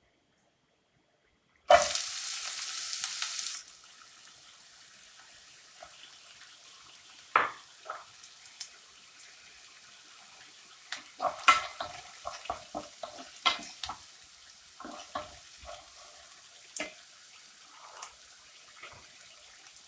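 Onion going into hot coconut oil in a pan: a loud sizzle for about two seconds, then a quieter steady frying sizzle. Over the frying come a series of taps and scrapes from a spoon or spatula stirring in the pan.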